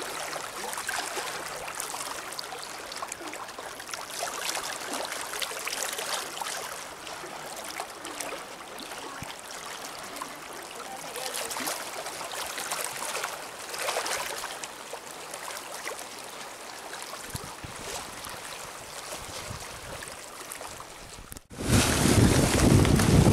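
Small waves lapping and splashing against a rocky lakeshore. About 21 seconds in it cuts abruptly to louder wind buffeting the microphone.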